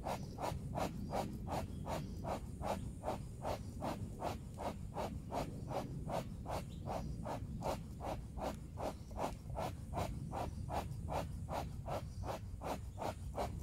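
Bee smoker's bellows being pumped in a quick, even rhythm of about three puffs of air a second.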